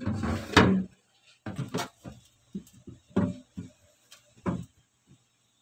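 Tomatoes and a head of cabbage being put into a plastic refrigerator crisper drawer. A loud rustle of handling in the first second, then a run of short, soft knocks and bumps as they are set down against the drawer's plastic.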